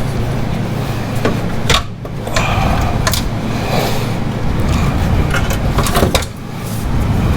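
Scattered clinks and knocks from hand work on the exhaust's metal parts and fittings, over a steady low hum.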